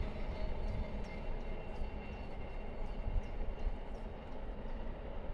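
Distant freight train running along the main line: a steady, low rumble.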